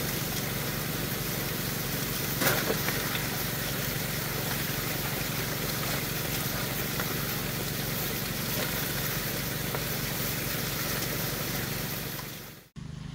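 Small engine of the water pump feeding a high banker sluice, running steadily under the rush of water through the sluice box. About two and a half seconds in, a shovelful of gravelly pay dirt lands in the hopper with a loud clatter, and the running fades out just before the end.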